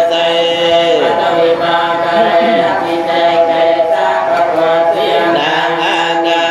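Khmer Buddhist paritta chanting: Pali protective verses intoned on a steady reciting pitch, with a few short sliding inflections.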